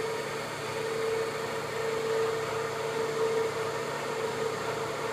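IMAT BC18 vacuum pug mill and its vacuum pump running steadily: an even machine hiss with a steady mid-pitched whine.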